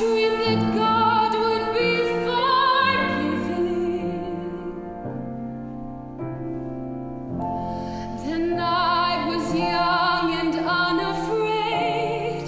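A woman singing a musical-theatre ballad in a trained, operatic style with vibrato, accompanied by a grand piano. The voice drops out for about three seconds in the middle while the piano carries on, then comes back.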